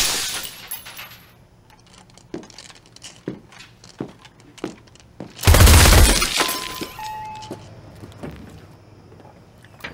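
Film sound effects: a few sharp clicks of broken glass underfoot, then about five and a half seconds in a loud crash of shattering glass with a heavy thud that dies away. Just after it come two short chime tones, the second lower.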